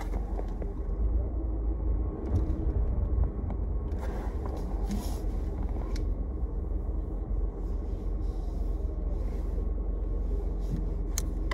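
Car driving, heard from inside the cabin: steady low road and engine noise.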